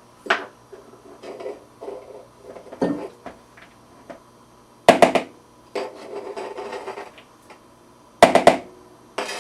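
Kitchen knife knocking on a wooden cutting board while working green onions: two quick runs of several sharp strikes about five and eight seconds in, a few single knocks, and soft rustling and clatter between.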